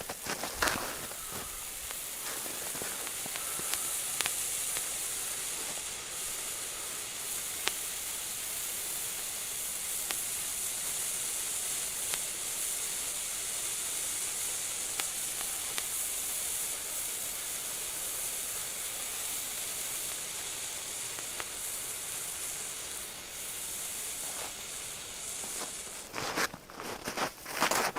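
Cosmos Fireworks hand fountain burning with a steady, high hiss that dies out about 26 seconds in, followed by a few sharp knocks.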